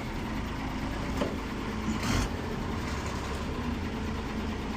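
Truck engine running steadily at low revs, heard from inside the cab, with a brief hiss about two seconds in.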